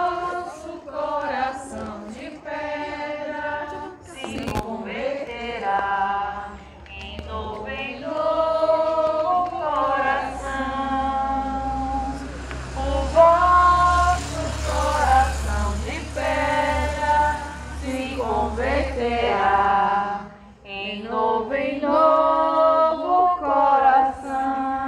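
A group of people singing a hymn together without instruments, in slow phrases with long held notes.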